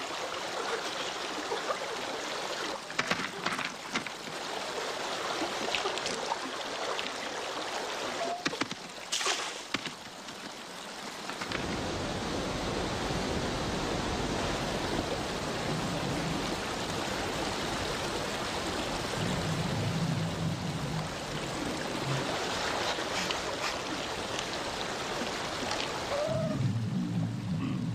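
A fast mountain river rushing over rocks in a steady wash of water noise, which grows deeper and fuller about twelve seconds in.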